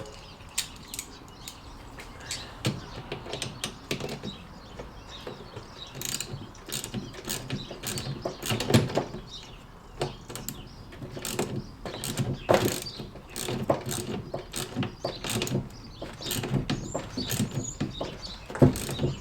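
Ratchet wrench with a 12 mm socket clicking in runs with short pauses as the nut on a new negative battery terminal is tightened down.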